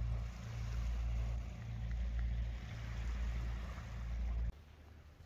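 A boat motor running steadily with water and wind noise; the sound stops abruptly about four and a half seconds in.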